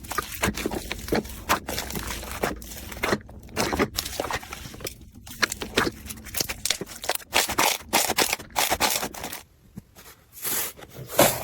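Slime being squeezed and worked by hand, making irregular sticky crackles, clicks and pops, with a brief lull near the end.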